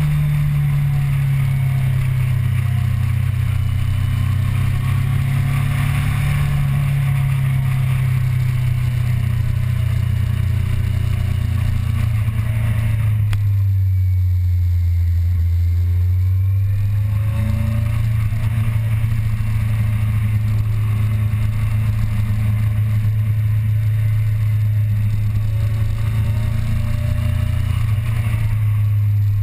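On-board sound of a sport motorcycle's engine running under way. It pulls at steady revs, the revs drop off about halfway through and then climb again a few seconds later.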